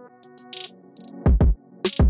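Background electronic music with a drum-machine beat: deep kick drums that drop in pitch, sharp high-pitched hits and steady held synth tones.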